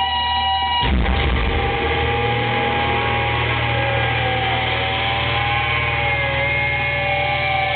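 Thrash metal band playing live through a concert PA, with a crashing hit about a second in. A dense wall of distorted electric guitar follows, with long held notes bending slowly in pitch over a steady low rumble of bass and drums.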